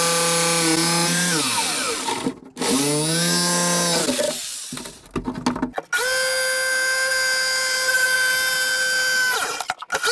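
Bosch corded jigsaw cutting into a wooden sink cabinet in three runs, its motor whine sliding down in pitch each time the trigger is let go. There are a few knocks in the pause about halfway through.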